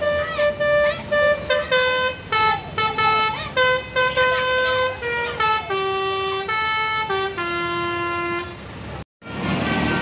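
A bus's Basuri musical horn playing a telolet tune: a run of held notes, each about half a second, stepping from note to note and moving lower in the second half. Just before the end it cuts off and gives way to traffic and motorbike engine noise.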